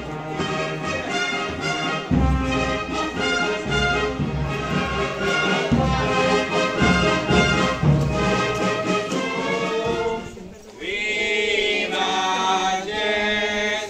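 A band with brass instruments playing processional music, which stops about ten seconds in; singing voices take over.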